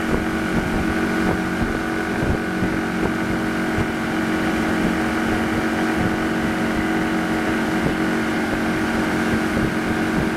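Tow boat's inboard engine running steadily at towing speed, a constant hum under the rush of the wake.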